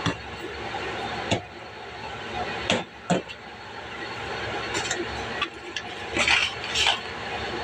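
Several sharp knocks and clinks, like dishes or utensils being handled, over a steady background hiss.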